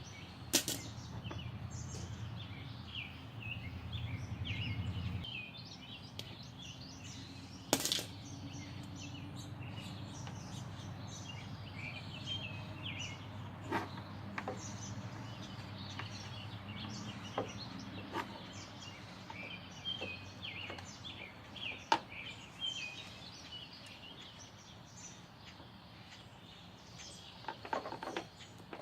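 Birds chirping steadily over a low rumble, with a few sharp clicks scattered through, the loudest about eight seconds in and again past twenty seconds.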